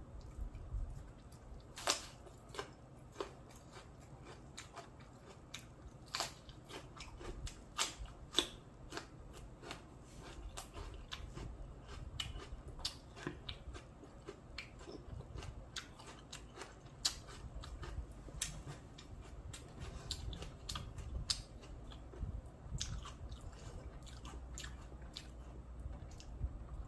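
A person biting and chewing crispy fried spring rolls, with sharp, irregular crunches throughout.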